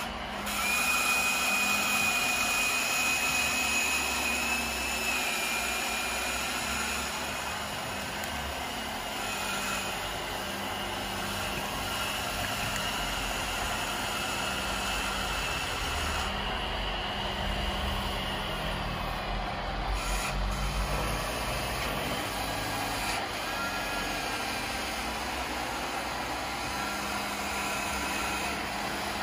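Electric drive motors and gearing of a radio-controlled model tractor or dozer whining as it works. A high steady whine is loudest for the first five or six seconds, then continues fainter, over a constant mechanical noise.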